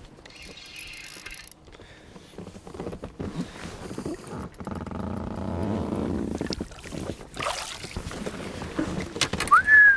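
Water splashing and sloshing as a hooked smallmouth bass thrashes at the surface beside the boat and is grabbed and lifted out by hand. There is a sharp splash about seven and a half seconds in, and a single falling whistle near the end.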